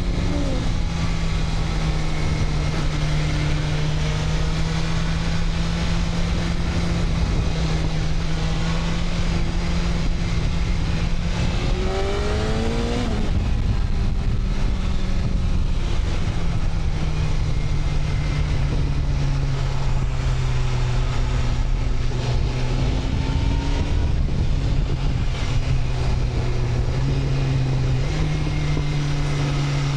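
BMW S1000RR's inline-four engine running under way at a fairly steady pitch, with a brief rise and drop in revs about twelve seconds in and small shifts in pitch later on.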